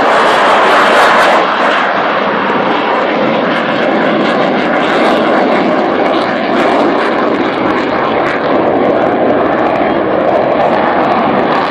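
Avro Vulcan XH558's four Rolls-Royce Olympus turbojets: a loud, steady jet rush as the delta-wing bomber flies away. It is loudest in the first second or two, then eases slightly.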